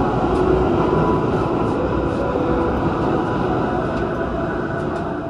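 Subway train running through the station: a steady loud din with faint whining tones that slowly fades near the end.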